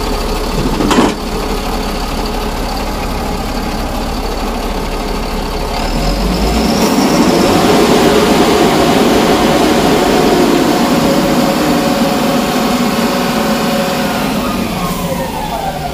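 Mahindra Blazo BS4 truck's diesel engine idling, then revved up about six seconds in and held high with a high whine, before the revs fall back toward idle near the end. A single sharp click comes about a second in. The engine is being free-revved to check boost after its turbocharger was refitted; its turbine wheel had come loose when the mounting bolts broke.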